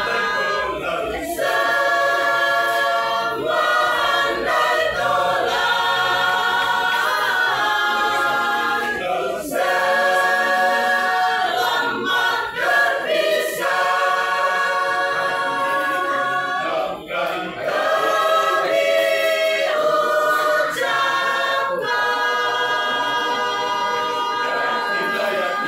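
Mixed choir of men and women singing masamper, the unaccompanied part-singing of the Sangihe-Talaud islands, in held chords sung in phrases of a few seconds with brief breaks between them.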